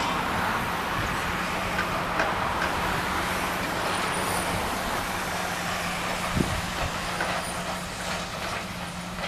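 Heavy demolition machinery's engine running steadily, with a couple of short knocks.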